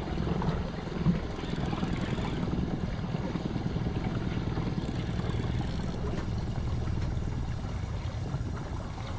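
Steady low rumble of wind on the microphone and water around a small boat.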